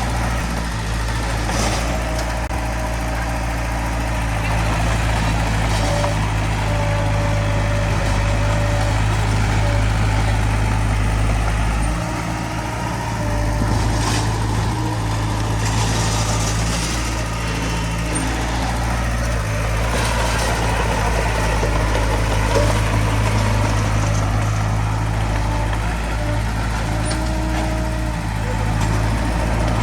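Diesel engine of heavy earthmoving equipment running steadily under load, a continuous low drone with small shifts in level.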